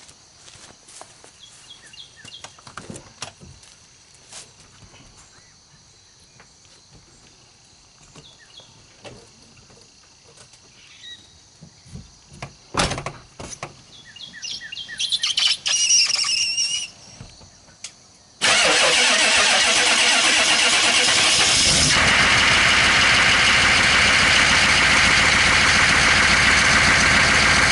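A flatbed pickup truck's engine starts suddenly about two-thirds of the way in and then runs loudly and steadily. Before that there are light footsteps and clicks, a sharp knock and a bird calling.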